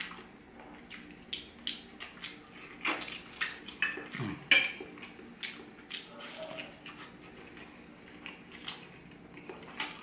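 Close-up eating sounds from boiled chicken: wet chewing and mouth smacks, with scattered clicks of a metal fork on a ceramic plate. The sharpest smack comes a little after four seconds in.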